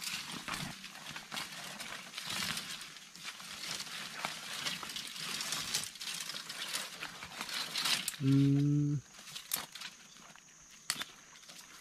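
Rustling and crackling of dry leaves and brush with scattered snaps for about eight seconds. Then a single short, low pitched call lasting under a second, after which only a few faint clicks remain.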